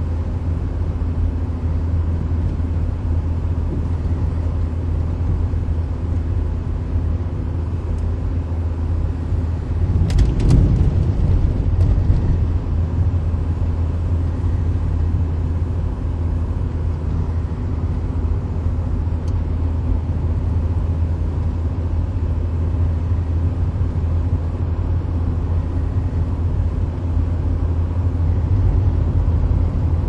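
Car engine and tyre noise heard from inside the cabin while driving steadily, a low even hum. About ten seconds in it briefly gets louder, with a few sharp knocks.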